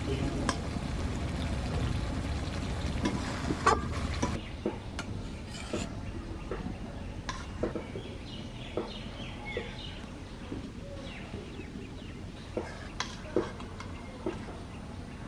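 Metal utensils knocking on cookware as thick chilli chicken is stirred in an aluminium kadai and then spooned onto a steel plate: scattered, irregular sharp clinks and knocks.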